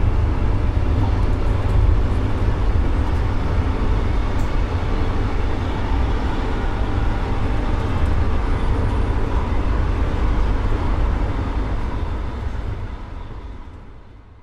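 Steady rumbling ride noise of a moving vehicle, heavy at the low end, fading out over the last couple of seconds.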